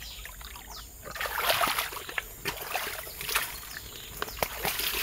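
Wading steps sloshing and splashing through shallow swamp water, with scattered light crackles and clicks of brushed vegetation.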